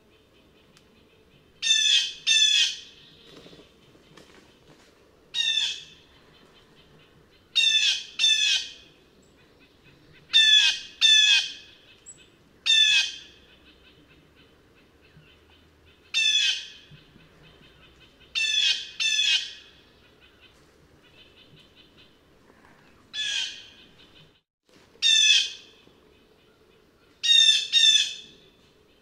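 Blue jay calling, about fifteen loud 'jay' calls given singly or in quick pairs, with short pauses between.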